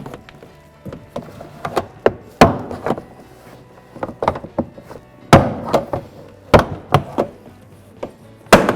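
Plastic push-pin clips of a door panel snapping loose as a trim removal tool pries them out of the door, with smaller clicks and knocks of the tool and panel between the pops. About four of the snaps are much louder than the rest, spread a second or more apart.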